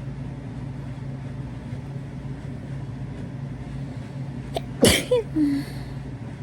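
A single sharp human sneeze about five seconds in, trailing off into a short falling voiced sound, over a steady low hum.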